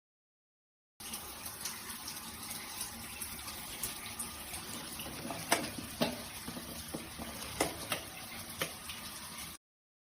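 Water running and splashing from a shower water heater's outlet, with scattered sharp drips and taps. It starts abruptly about a second in and cuts off suddenly near the end.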